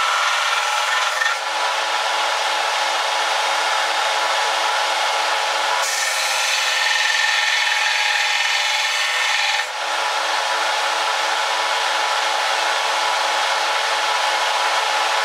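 Weld on a steel knife tang being ground down, a continuous rasping with a faint steady motor tone in it. The grinding shifts briefly about a second and a half in, again about six seconds in, and near ten seconds.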